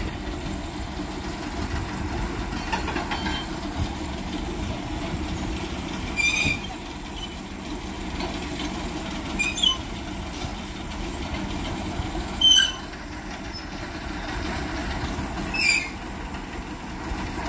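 Heavy vehicle engines idling with a steady low rumble. Short, shrill squeals cut through every three seconds or so, four in all.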